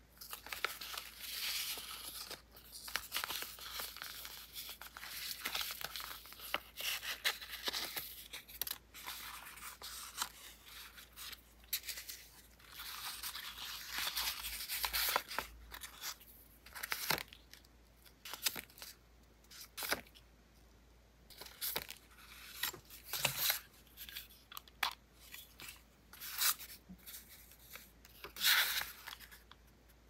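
Close-miked paper and sticker handling for diary decorating: stickers peeled from their backing, sheets rustling, and light taps on paper. The sound is a dense run of scratchy rustles at first, then thins out into separate short scrapes and taps.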